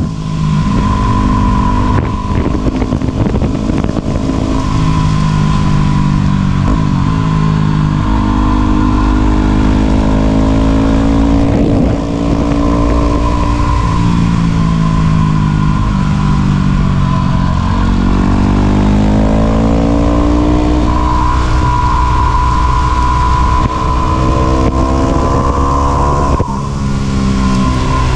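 Yamaha WR250 single-cylinder four-stroke motorcycle engine under way, its pitch repeatedly rising and falling as the rider accelerates, shifts and rolls off, with a steady high whine over it.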